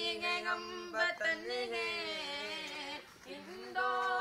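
Voices singing a slow melody without instruments, in long held notes that bend gently, with a short break about three seconds in.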